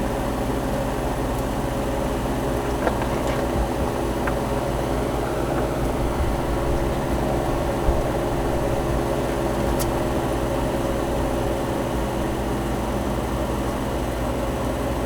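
A running motor keeps up a steady drone made of several level tones. A few faint light clicks sound over it.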